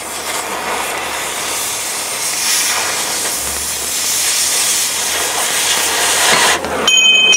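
Oxy-fuel cutting torch hissing steadily as it burns through a steel upper control arm cross shaft. The hiss stops abruptly about seven seconds in, followed by a brief high ringing tone.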